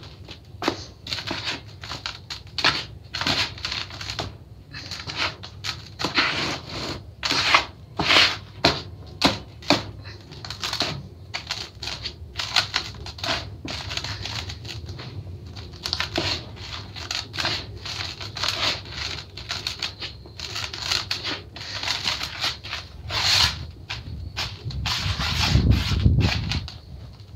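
Hands squeezing, crumbling and letting damp sand fall in a plastic tub: an uneven run of gritty crunching and rustling strokes, with a deeper rumble near the end as the sand is pressed and smoothed.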